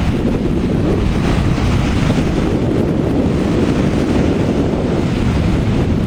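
Wind buffeting the microphone: a steady, loud low rumble with no break.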